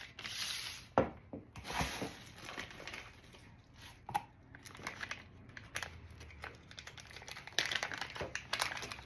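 Packing wrap being unwrapped from an item: crinkling, rustling and tearing, with a sharp click about a second in and denser crackling near the end.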